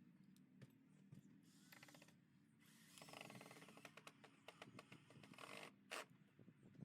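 Faint clicking and scraping of handling noise, with a run of quick small clicks about three seconds in and a sharper click near the end.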